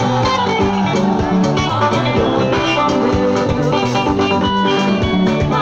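Loud music played over a PA system, with plucked guitar and a steady beat.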